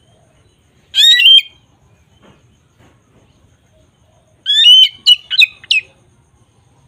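A bird calling in two loud bouts of shrill, chirping notes: a short call about a second in, then a quick run of several notes about four and a half seconds in.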